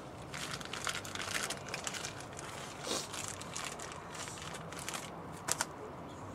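Plastic wrapping crinkling and crackling as it is handled: a run of irregular crackles, with two sharp clicks about five and a half seconds in.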